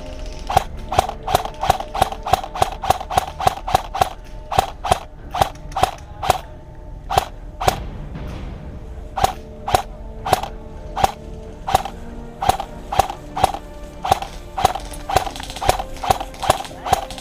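Airsoft gun firing single shots in quick strings, sharp cracks about three a second, with a short pause about eight seconds in.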